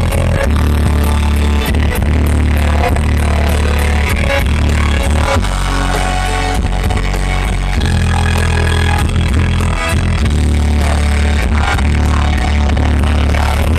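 Live rock band playing loud, with a heavy bass line and a steady drum beat.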